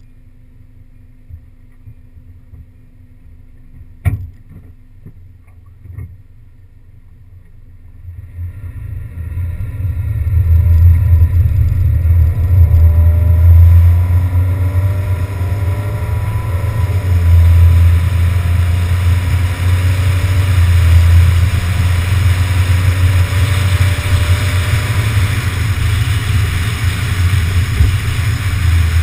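Wind buffeting and road noise on a camera mounted outside a moving car. Quiet for about eight seconds apart from two or three small knocks, then it builds into a steady, loud low rumble with hiss as the car gets up to speed.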